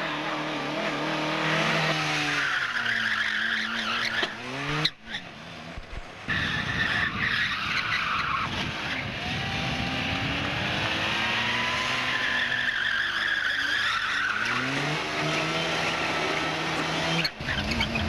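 Rally cars driven hard, engines revving up and dropping again and again through gear changes, with tyres skidding on the surface. The sound breaks off abruptly a few times, switching between cars.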